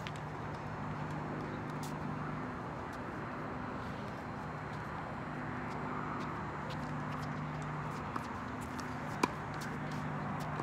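Steady low hum and background noise with faint scattered clicks, then one sharp tennis racket-on-ball hit about nine seconds in, preceded by a smaller click a second earlier.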